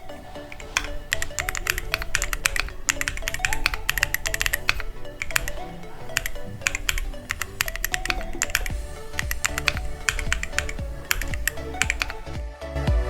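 Fast typing on a custom foam-filled aluminium LMK81 mechanical keyboard with a polycarbonate plate and Crystal Brown switches, a dense run of key clacks with short pauses near the start and about eight seconds in. Background music plays under the typing.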